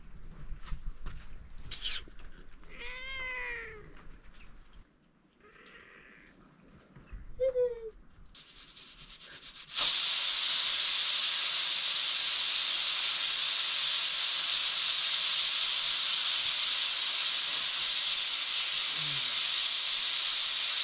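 A cat meows twice, one long cry and one short. Then, about ten seconds in, a pressure cooker on a wood fire starts a loud, steady hiss of steam venting from its valve.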